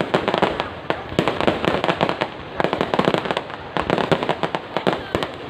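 Fireworks going off in a dense, fast run of crackling pops, easing briefly twice before picking up again.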